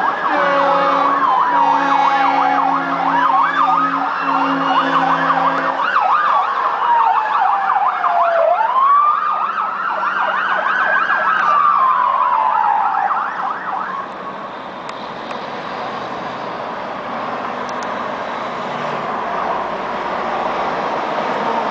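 Police car and ambulance sirens passing: a wail sweeping slowly up and down overlaps a fast yelp, with a horn sounding steadily through the first six seconds. The sirens fade away about 14 seconds in, leaving the hiss of highway traffic.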